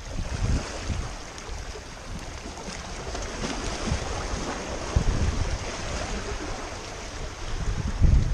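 Sea water washing and lapping, with wind gusting over the microphone in low rumbles, strongest about half a second in, about five seconds in and near the end.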